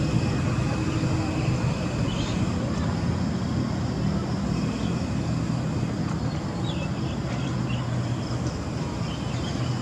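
Steady low rumble of distant road traffic, with a few faint high chirps now and then.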